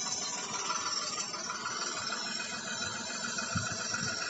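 Tractor engine sound played through the small loudspeakers of a homemade toy tractor, running steadily.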